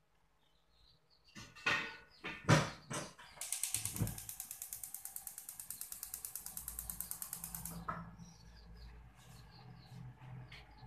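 A few loud knocks, then a gas hob's electric igniter clicking rapidly, about ten clicks a second, for about four seconds as the burner knob is held, stopping once the burner lights.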